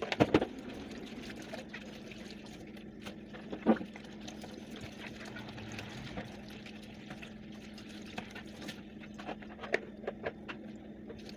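Tap water running at a kitchen sink while dishes are washed, with sharp clinks and knocks of crockery: a cluster just after the start, one about four seconds in, and several near the end.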